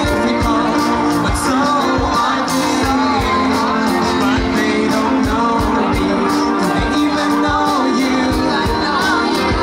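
Live rock band playing: a singer over electric guitar and drums, with a steady drum beat of about two beats a second.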